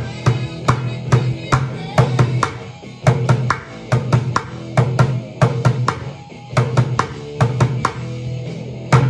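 Drumsticks playing an upturned plastic five-gallon bucket in a fast, steady rock rhythm. Sharp stick cracks on the rim and sides mix with deep, ringing bass strokes on the bucket's head.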